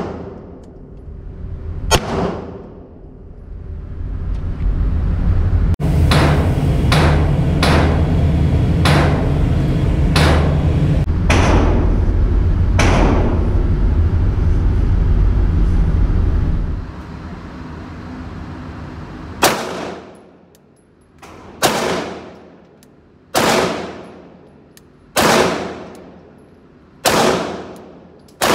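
Canik TP9SFX 9 mm pistol fired at an indoor range: single sharp reports, each with a ringing echo. Through the middle a steady low rumble runs under a string of further shots, and near the end shots come evenly, about one every two seconds.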